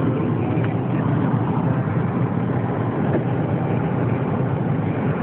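Steady road noise inside a moving car's cabin.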